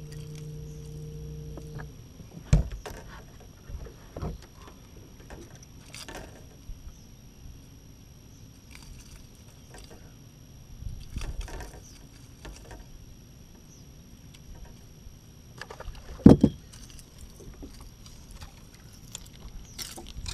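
Bass boat's bow-mounted electric trolling motor humming steadily, cutting off about two seconds in. Then quiet, with scattered light ticks and two sharp knocks on the boat's deck, one shortly after the motor stops and a louder one later.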